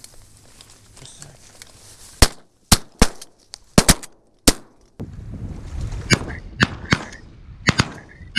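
A volley of shotgun shots from several hunters: about six sharp shots in under three seconds, then a few more, slightly softer shots near the end.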